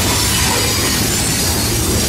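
Freight train rolling past, covered hoppers and tank cars giving a steady rumble of steel wheels on the rails.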